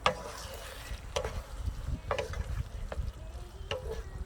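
A metal cooking utensil knocking and scraping against a pan while an octopus stir-fry is being stirred, five sharp clacks roughly once a second over a low steady rumble.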